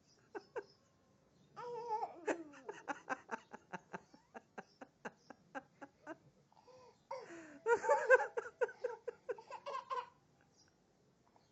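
Young child laughing in repeated short bursts, a quick string of laughs followed by a longer, louder bout.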